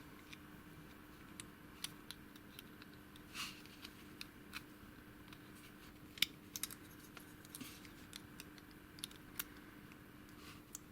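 Faint, irregular clicks and scrapes of a small metal tool working at the tight retaining ring on a padlock's lock cylinder, trying to pry the ring off.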